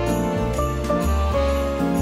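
Upbeat Christmas-style background music: a melody of short held notes over a bass line, with jingle bells keeping a steady beat.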